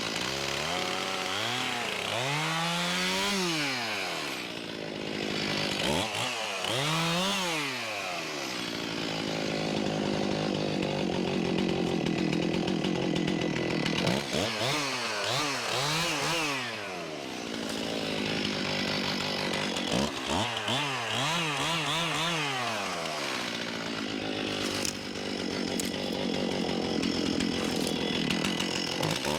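Two-stroke chainsaw cutting a red oak log. The engine revs up and drops back again and again, with longer stretches held at full throttle in the cut.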